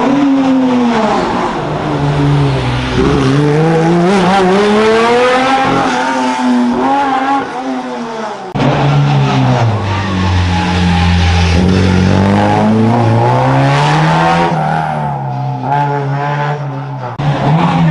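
Historic rally car engine at full cry on a closed stage, the revs climbing and falling over and over as the driver accelerates, lifts and shifts through the corners. About halfway through the sound changes abruptly.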